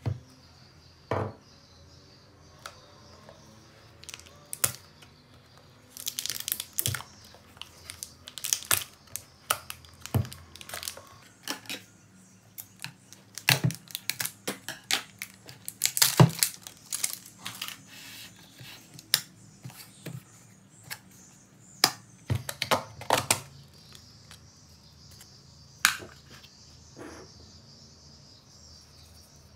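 A plastic yoghurt tub being opened by hand: scattered crinkles, crackles and clicks of its plastic lid and packaging.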